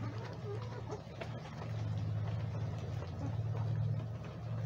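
A steady low hum, like a running motor or engine, over a faint even hiss.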